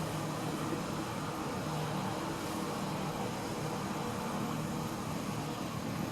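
A glass Kone EcoDisc lift car travelling up its shaft: a steady running hum and rush with a low drone underneath, even throughout.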